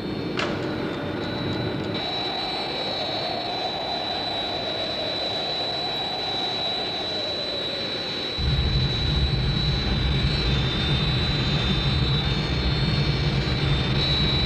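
Jet aircraft engines droning in flight, a steady rush with a thin high whine over it. A little over halfway through, a louder low rumble comes in and keeps going.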